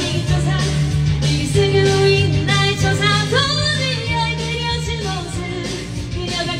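A woman singing a rock song into a karaoke microphone, her voice amplified through the karaoke room's speakers over a loud band backing track.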